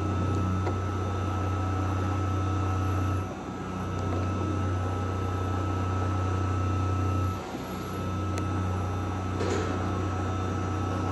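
CNC mill spindle driving a three-insert carbide endmill through a slot in mild steel: a steady low hum that dips briefly twice, about every four seconds, with a steady whine that stops about two-thirds of the way through. This is the light cut near the end of the slot, where the chips are thin and burn up as sparks.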